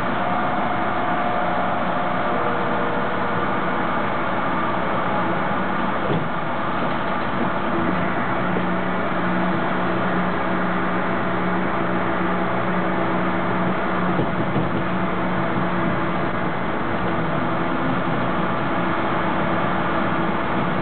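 Toronto subway train running along the track, heard from inside the car: a steady rumble of wheels on rail, with a low electric motor hum that settles in about a third of the way through. A single click about six seconds in.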